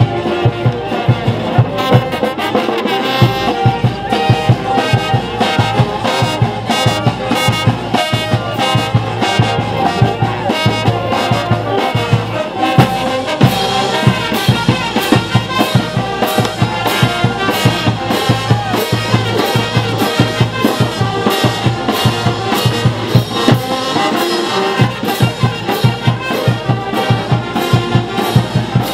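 Brass band playing dance music live: trumpets, saxophones and sousaphones over snare and bass drums keeping a steady beat.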